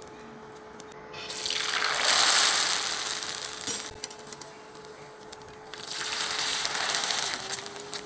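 Dried sotanghon noodles sizzling as they deep-fry in very hot oil: two loud bursts of hissing sizzle of about two seconds each, the first starting a little after one second in and the second a few seconds later.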